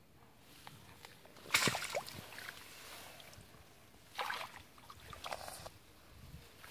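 Short splashes and swishes in shallow muddy water among grass, in three brief bursts, the loudest about a second and a half in.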